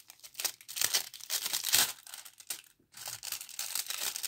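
Clear plastic photo card sleeve crinkling as it is handled. Repeated crackly rustles are loudest a little under two seconds in, with a brief pause just before three seconds.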